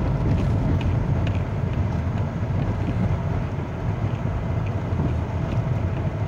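Busy city street ambience: a steady low rumble of passing traffic, with a few faint light clicks in the first two seconds.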